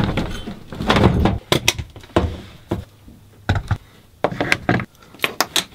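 Handling noise from camera gear being fitted together: a string of separate clicks, knocks and thunks, irregular and close.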